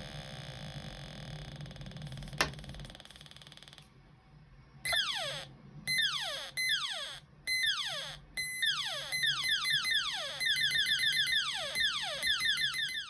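Two-transistor sound-effect circuit playing through a small speaker: a buzzy electronic tone, then a click about two and a half seconds in. After a short lull the second effect starts, a series of falling-pitch electronic sweeps that come one by one at first, then about three a second near the end, before cutting off.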